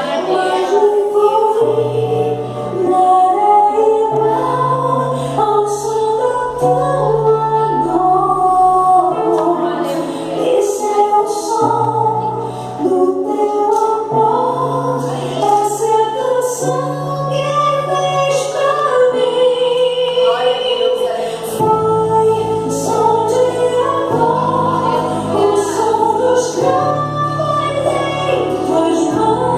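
Recorded gospel song: a woman sings lead with a choir behind her, over a bass line and light percussion.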